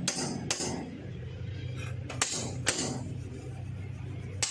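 Hammer blows on a steel rod driven into the cloth-packed pilot bearing bore of a Mahindra 265 DI tractor's crankshaft, forcing the bearing out bit by bit. Sharp metallic strikes come in pairs about half a second apart, five in all.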